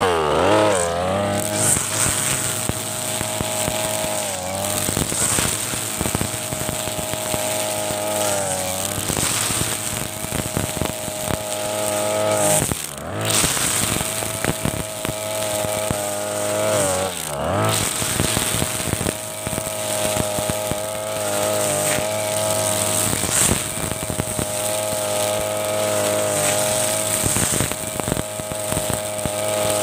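Mitsubishi TB43 two-stroke brush cutter running at high revs while cutting grass with its spinning line head. The engine note climbs quickly at the start, then dips and climbs back a few times, with scattered ticks of clippings and debris.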